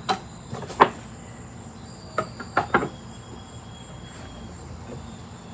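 Truss rod wrench and guitar hardware clicking and knocking during a truss rod adjustment on a Gibson SG: two sharp clicks in the first second, then three more a little after two seconds in. A faint steady high-pitched tone runs underneath.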